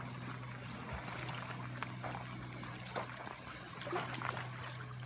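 Water sloshing and lapping, with scattered small splashes, over the steady low hum of a boat engine.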